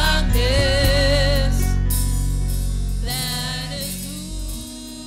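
Gospel worship song: a singer's voice with vibrato over digital piano keyboard and bass chords. The music dies away near the end as the song closes.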